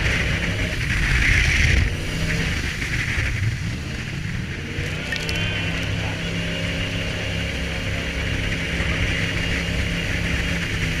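Jet boat engine running steadily at speed, with the rush of water spray and wind over the boat, the spray loudest in the first two seconds.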